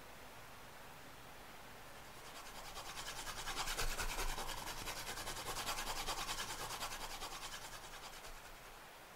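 Pencil shading on paper: a quick, even run of scratchy back-and-forth strokes. It grows louder about two seconds in and fades away near the end.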